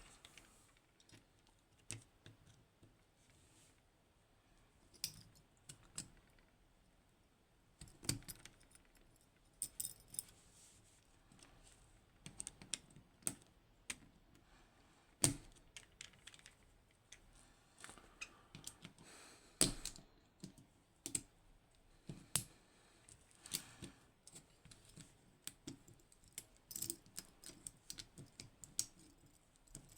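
Irregular small metallic clicks and clinks as a pin-tumbler lock and its pick and tension tools are worked by hand, some louder knocks around the middle of the stretch.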